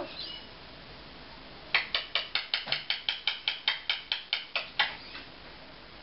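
Eclectus parrot giving its clicking laughter: a quick, even run of about sixteen sharp clicks at roughly five a second, lasting about three seconds and starting a couple of seconds in.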